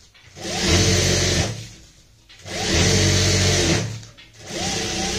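Industrial sewing machine stitching through fabric in three short runs of about a second each, stopping in between. Its motor whirs up in pitch at the start of each run.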